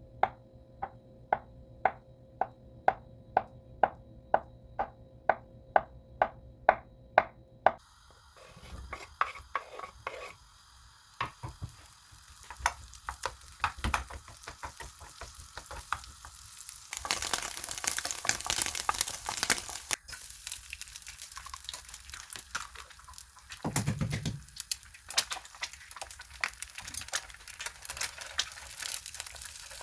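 Kitchen cooking sounds: a run of evenly spaced clicks, about two a second, for the first several seconds, then utensils clattering and stirring in a pan while food sizzles, the sizzle swelling loudly partway through.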